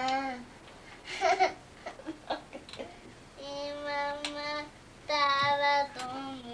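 Toddler singing wordlessly in long held notes, with a short high squeal about a second in and a few faint knocks between the notes.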